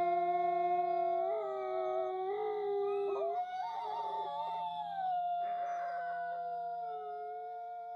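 Wolves howling: several long overlapping howls that glide in pitch and enter one after another, fading out toward the end.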